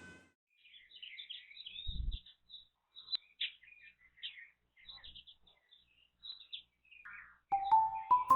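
Small birds chirping in quick, scattered high notes, with a single low thud about two seconds in.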